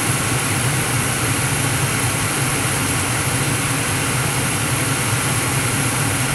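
Gas furnace burners firing: a steady, unchanging low roar of the gas flames.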